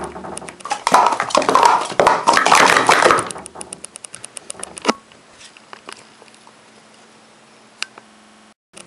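Green Speed Stacks plastic cups clattering rapidly as a 3-6-3 sequence is stacked up and down in a timed sport-stacking run of about 2.7 seconds. A single sharp tap follows, then it goes quiet apart from a faint steady hum and one more click.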